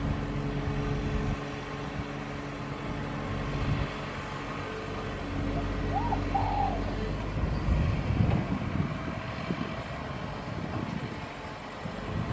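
Hitachi hydraulic excavator's diesel engine running under load as the arm digs and swings, getting louder and rougher about eight seconds in.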